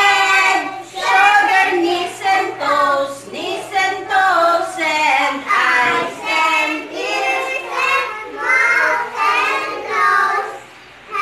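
A group of young children singing an action song together, in short sung phrases with brief breaks between them.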